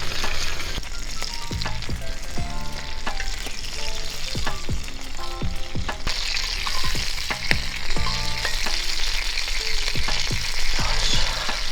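Steak sizzling as it fries over a campfire, a steady hiss that grows stronger about halfway through, with light background music.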